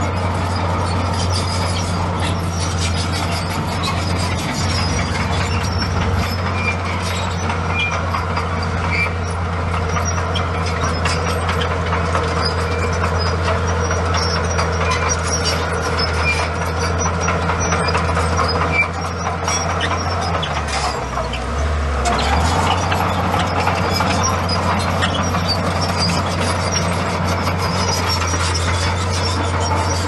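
Komatsu bulldozer's diesel engine running steadily, with continual clicking and clanking from the crawler tracks. About two-thirds of the way through, the engine note drops briefly and then recovers.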